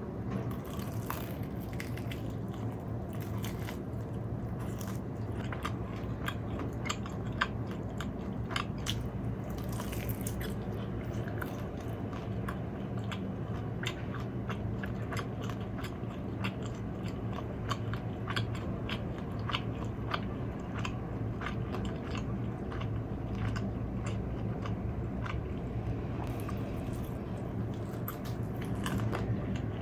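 Close-miked eating: crisp fried food bitten and chewed, with many sharp crunches, over a steady low hum of background noise.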